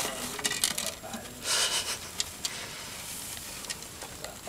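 Pet mice scuffling on paper-towel bedding in a cage: a short rustling burst about a second and a half in, then scattered light ticks and scratches.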